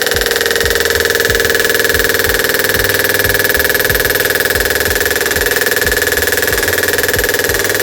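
Homemade DC-motor door alarm sounding: a loud, steady, rapid buzz with a strong high tone above a lower one.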